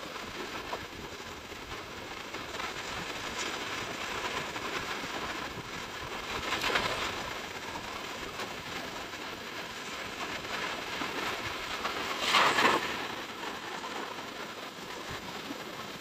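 Small waves washing up on a sandy shore: a steady hiss of surf, with two louder waves breaking about six and a half and twelve and a half seconds in.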